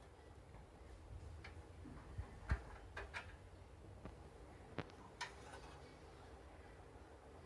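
Scattered clicks and light knocks from parts being handled and fitted in a desktop PC tower case, about seven in all, the loudest about two and a half seconds in.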